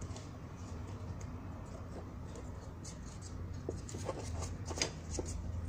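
Small handling sounds of an EVA foam collar piece being pressed and fitted onto a foam-covered tin can: light rustles and scattered clicks that grow busier in the second half, over a low steady hum.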